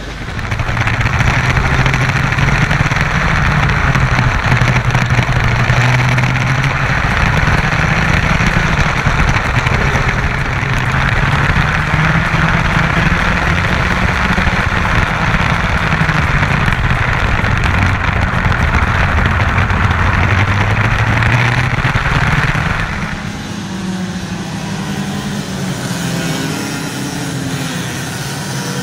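Kart engine running, its pitch slowly rising and falling. About 23 s in it gets quieter, and near the end it revs up and down in short glides.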